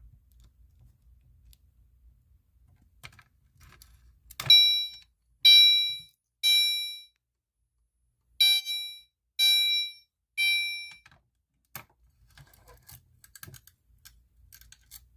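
Gentex Commander 3 horn strobe on its chime setting, sounding a temporal code 3 pattern: three ringing chime tones about a second apart, a short pause, then three more. Sharp clicks come just before and after, with small handling clicks near the end.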